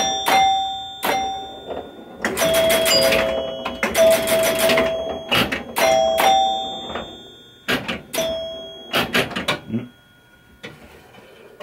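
Pinball chime box ringing, its chime bars struck several times as the game scores, each tone ringing on and fading, among sharp clicks and clacks of the game's mechanism. It is a 1973 Williams Travel Time chime box refitted with Gottlieb chime bars. It goes quieter near the end.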